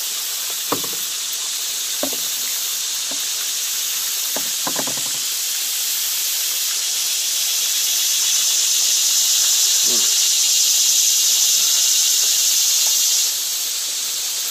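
Cicadas buzzing in the trees, a steady high hiss that swells louder from about eight seconds in and stops abruptly near the end. A few light knocks come through underneath.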